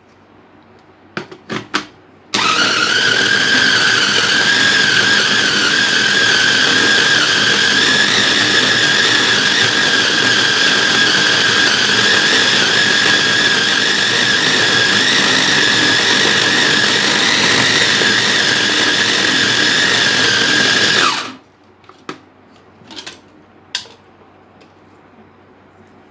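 Electric food chopper's motor running at a steady high whine for about nineteen seconds while it minces raw meat, then switched off and winding down with a short falling pitch. A few plastic clicks come just before it starts and just after it stops.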